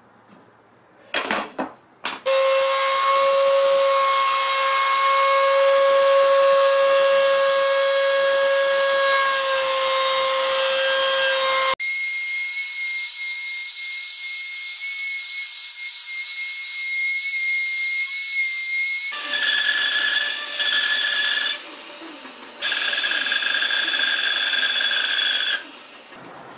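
Woodworking power tools running and cutting wood in turn. It opens with a few sharp knocks, then a motor whines at one steady pitch for about ten seconds. After an abrupt change a higher-pitched whine follows, then another machine that stops for about a second and starts again.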